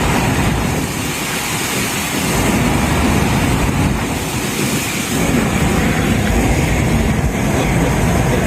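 Loud, steady rushing of floodwater with a heavy low rumble.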